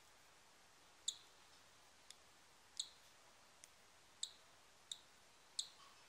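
Newly hatched cockatiel chick peeping: about seven short, high-pitched peeps, roughly one every second, some fainter than others.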